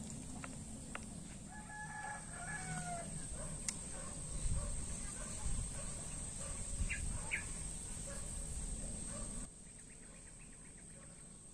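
A rooster crowing once, about two seconds in, a pitched call that bends down at its end, over a steady high-pitched buzz and low rumbling background with a few soft knocks. The background level drops abruptly near the end.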